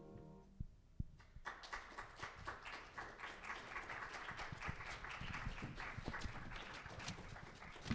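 A choir's last held chord dies away, and about a second and a half later an audience starts applauding, a dense patter of clapping that keeps on.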